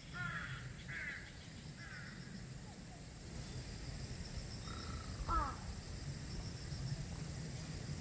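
Crows cawing in the trees: three or four quick caws in the first two seconds, then one more call about five seconds in.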